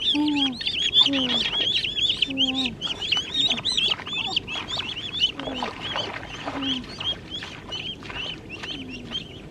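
Ducklings peeping shrilly and rapidly, several calls a second, thinning out toward the end, with a lower falling call every second or so.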